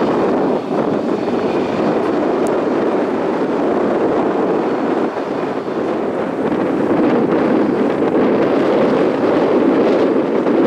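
Jet engines of a Boeing 737-8 MAX (CFM LEAP-1B turbofans) running on the runway: a loud, steady rumble that grows slightly louder in the second half.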